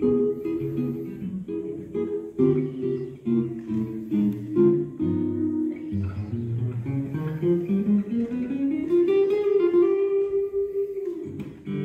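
Solo acoustic guitar playing a slow instrumental, note by note. About seven seconds in a run of notes climbs to a held note that rings and then dies away just before the playing picks up again.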